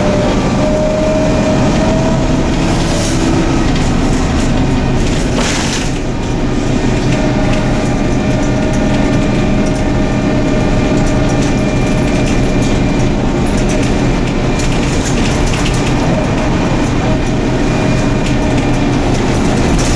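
Cabin noise inside a Neoplan/ΕΛΒΟ N4007 city bus under way: steady engine and drivetrain rumble with a faint whine and road noise. Brief rattles of the bus fittings about three seconds in and again at five and a half.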